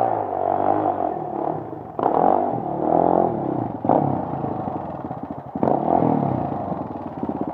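Suzuki LT-Z sport quad's single-cylinder four-stroke engine, revving up and down as it rides through snow and pulls up close, with a quick throttle blip. It settles into an even, pulsing idle near the end.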